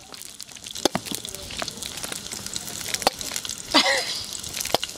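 Squeeze bottle of mayonnaise sputtering as it is squeezed out: a few sharp pops and clicks over a faint steady hiss, with a brief squeaky sound about four seconds in. The sauce is coming out unevenly.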